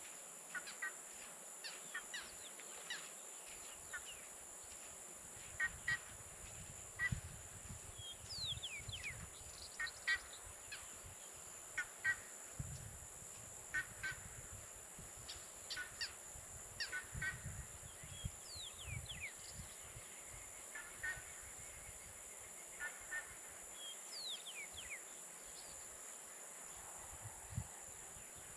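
Wetland birds calling: many short, repeated calls and quick downward-sliding whistles scattered throughout, over a steady high-pitched insect drone, with low rumbling at times.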